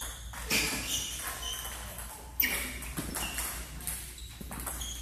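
Table tennis balls clicking off bats and the table in a rally, a string of sharp, irregular ticks; the sharpest hit comes about two and a half seconds in.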